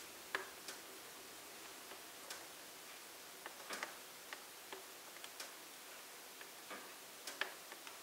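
Firewood logs burning in a wood fireplace, crackling with a dozen or more irregular sharp pops and snaps over a faint steady hiss. The loudest pops come about a third of a second in and again near the end.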